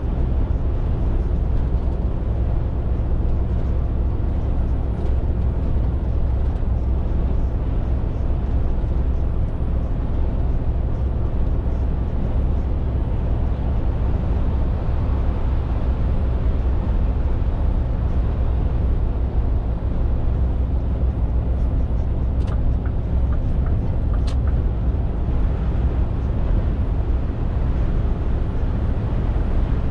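Scania R450 lorry on the move, its 13-litre inline-six diesel running at a steady pace with road noise, a constant low rumble. Two short clicks sound about two-thirds of the way through.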